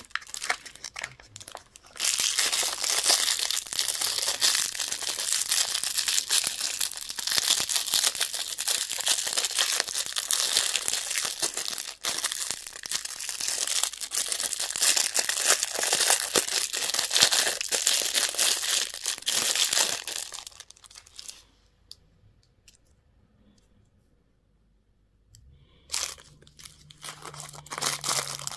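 Candy wrappers being torn open and crinkled, a dense continuous crackle that stops about twenty seconds in; after a short silence, a few more crinkles near the end.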